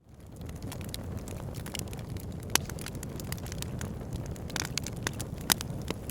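Logs burning in a fireplace: a steady low rumble of flame with frequent sharp crackles and pops, the loudest about two and a half and five and a half seconds in. The sound fades up from silence at the very start.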